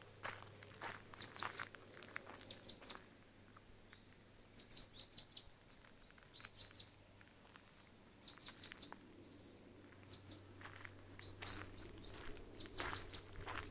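Small songbirds chirping: short high chirps in quick runs of three to five, repeating every second or two.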